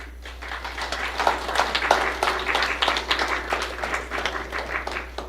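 Audience applauding: many hands clapping, starting just after the talk's last words and thinning out near the end.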